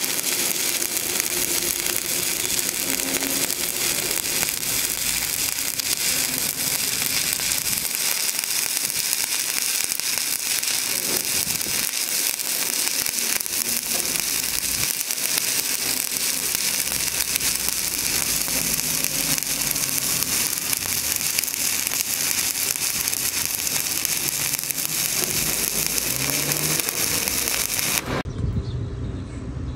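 Stick (shielded metal arc) welding arc burning steadily at a coated electrode, with a continuous dense crackle. The arc is broken about two seconds before the end, and the sound cuts off suddenly.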